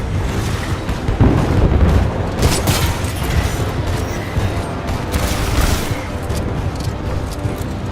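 Action video game combat audio: a music score with repeated loud bangs and bursts of gunfire.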